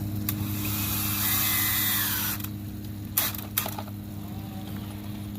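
Power drill driving a screw into a 2x4 brace, running for about two seconds with its whine dropping in pitch as the screw seats, then two sharp clicks.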